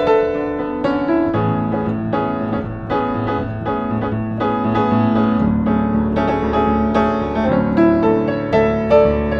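A 1960s upright piano played solo, with a flowing melody over held bass notes. A lower bass note joins about halfway through.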